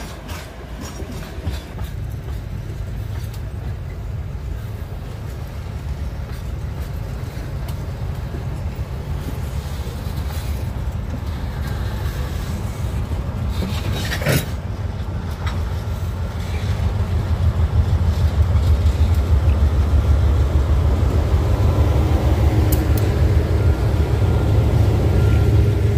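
Two GE BB36-7 diesel-electric locomotives rolling up with empty freight wagons and passing close. Their engine rumble grows steadily louder and is loudest over the last several seconds. A single sharp knock sounds about fourteen seconds in.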